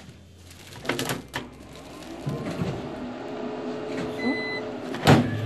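Automatic shoe-cover dispenser working as a shoe is pressed into it: plastic film crinkles under the foot, then the machine's motor runs while it wraps the film over the shoe. A short electronic beep sounds a little after four seconds, and a loud clack comes near the end.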